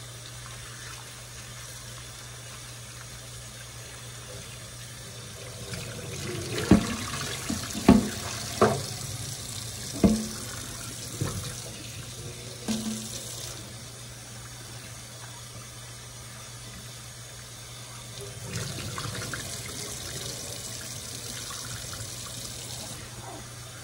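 Kitchen tap running into a sink while potatoes and carrots are washed by hand. Several sharp knocks come between about six and thirteen seconds in as the vegetables bump about in the sink, and the water runs louder again near the end.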